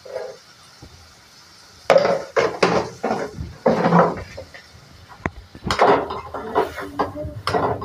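Metal spatula clanking and scraping against a metal kadhai and steel bowl in two spells of sharp clatter, the first about two seconds in and the second near the end.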